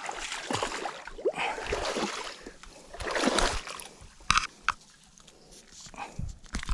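Water splashing and sloshing in two stretches, followed by a few sharp clicks in the second half.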